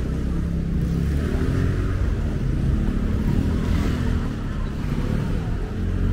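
A motor vehicle's engine running close by, over general city street noise.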